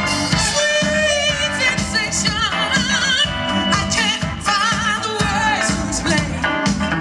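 Dance music with a steady bass beat and a singing voice whose pitch wavers.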